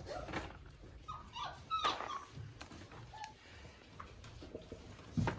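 Weimaraner puppies about a month old whimpering: several short, high whines in the first couple of seconds and one more about three seconds in, among light knocks and scuffles, with a dull thump near the end.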